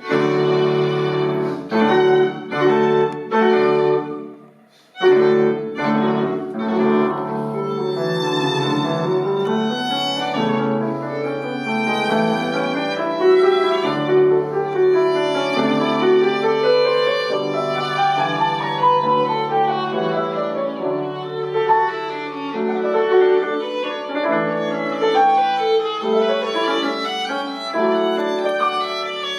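Background music: violin melody over piano accompaniment, with repeated chords at the start and a brief pause about four seconds in.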